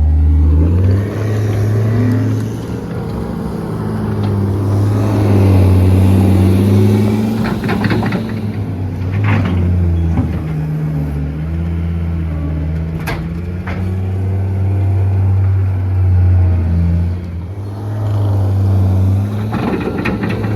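Engine of a heavy machine running under varying load, its pitch rising and falling as it works, with a few sharp clanks.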